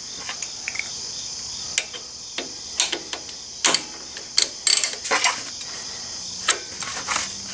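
Irregular metallic clicks and clinks of a hand ratchet with an Allen bit snugging down the bolt on a motorcycle foot-peg bracket, left only snug so the bracket can still move. A steady high-pitched drone runs underneath.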